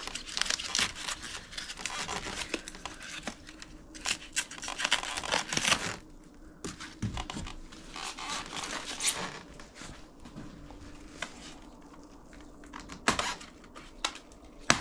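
White protective packaging being torn and pulled off a boxed e-bike's frame, crinkling and rustling in irregular bursts, busiest in the first half, with a few sharp clicks near the end.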